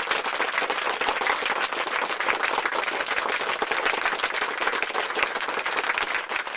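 A crowd applauding, with dense, steady clapping.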